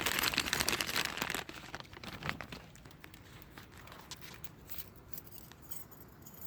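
A little bag holding lock picks crinkling as it is handled and opened, loudest for about the first second and a half. After that come quieter scattered clicks and rustles.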